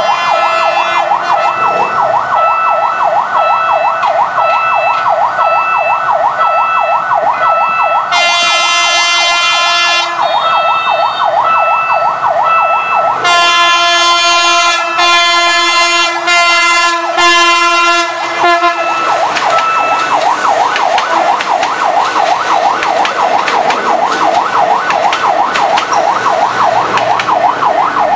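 Level-crossing warning siren warbling without a break, with a short beep repeating under it. A PNR diesel multiple unit's horn sounds one long blast about eight seconds in. It follows with about four shorter blasts in quick succession between about thirteen and eighteen seconds in, as the train passes.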